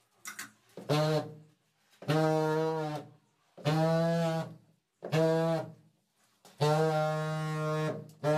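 Handheld suction-cup tile vibrator buzzing against a large porcelain wall tile, switched on in about six bursts of half a second to a second and a half each, at the same steady pitch, bedding the tile into its adhesive.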